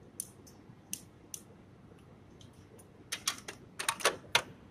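Light, sharp clicks and taps of handling test equipment: a few scattered ones, then a quick run of them about three seconds in, as a meter probe is brought to the breaker's coil terminals.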